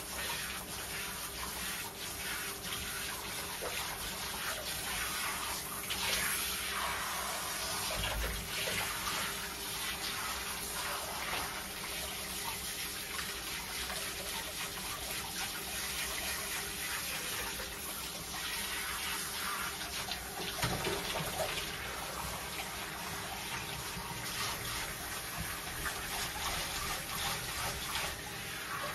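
Handheld shower head spraying water over a dog standing in a bathtub: a steady hiss of spray running off its coat and splashing into the shallow bathwater.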